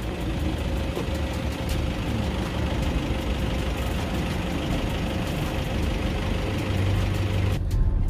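Steady road and engine noise heard inside a moving car, a low rumble under a hiss of tyres. Shortly before the end the hiss drops away suddenly.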